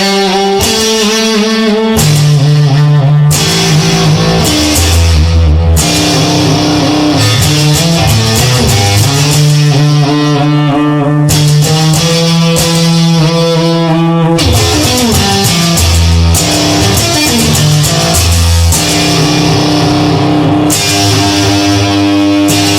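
Instrumental blues passage with guitar over a bass line, sustained notes and no singing.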